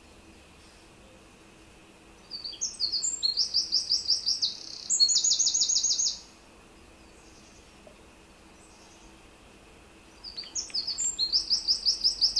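A songbird singing two song phrases of rapid, high trilled notes, each lasting about four seconds, the first starting about two seconds in and the second near the end.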